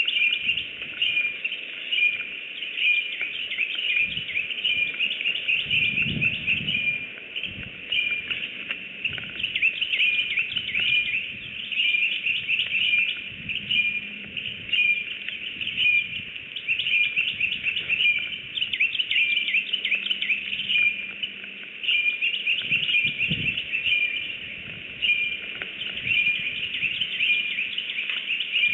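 Birds chirping without pause in rapid runs of short high notes, with a few soft low thumps now and then.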